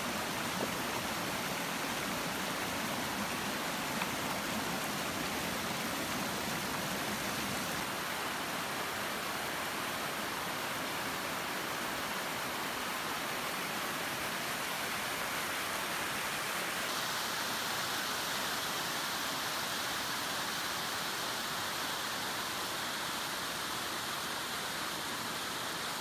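Small mountain waterfall and stream cascading over rocks: a steady, even rush of falling water. Its tone shifts slightly twice.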